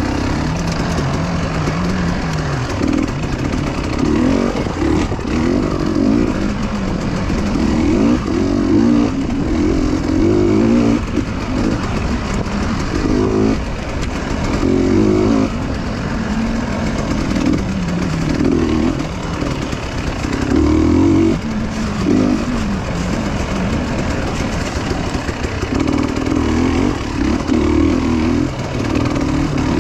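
Motorcycle engine running while riding, its note rising and falling with steady rushing noise underneath.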